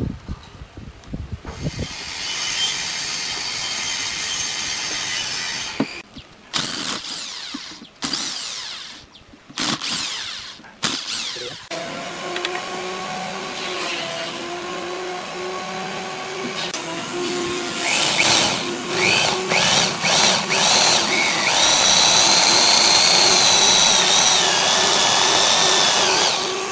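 Woodworking power tools in turn: first a wood lathe turning a segmented wood blank, then, over the last several seconds, a corded electric drill boring into the end grain of the turned vase, running steadily under load.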